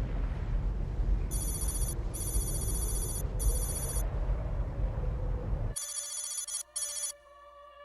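A trilling electronic ring, like a telephone bell, sounds in three short bursts over a loud low rumble. The rumble cuts off suddenly about six seconds in, and the same ring is heard clean in a few quick bursts, then gives way to faint steady tones.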